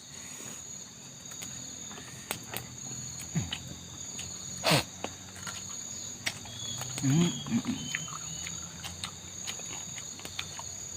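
Steady high-pitched chorus of insects droning, with scattered clicks and knocks and a short low murmur of a voice about seven seconds in.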